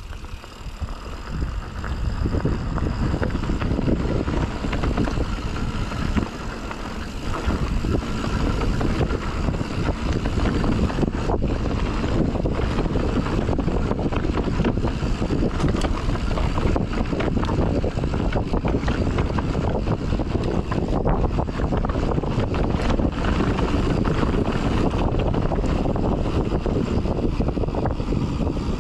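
Mountain bike riding fast down a dirt trail, heard on a helmet- or bike-mounted action camera: wind buffeting the microphone over the rumble of tyres on dirt and the clatter of the bike over bumps, louder after about two seconds.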